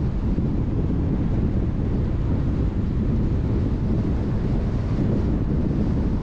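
Steady low rumble of wind buffeting the microphone of a car-mounted GoPro as the car drives, with the car's road noise mixed in.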